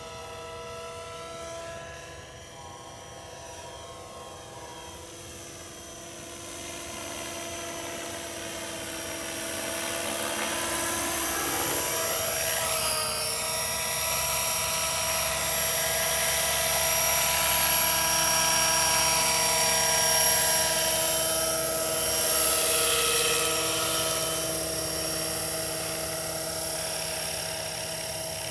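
Scale radio-controlled AS350 helicopter in flight: a steady high whine of its motor and rotor, growing louder as it comes close about halfway through, with the pitch sliding as it passes, then easing off a little near the end.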